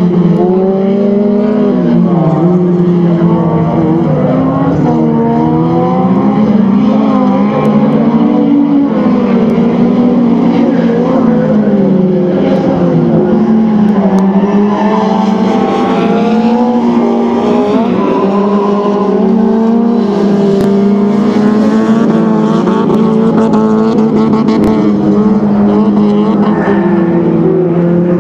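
Engines of several folkrace cars racing, their pitch rising and falling continuously as the drivers rev up, shift and lift off for the corners.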